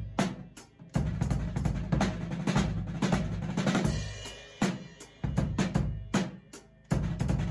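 Acoustic drum kit played in gospel-style chops: rapid snare and tom strokes mixed with bass-drum kicks and cymbal hits. The sticking combines triplets with the kick, double strokes and a six-stroke roll. It comes in short runs separated by brief pauses.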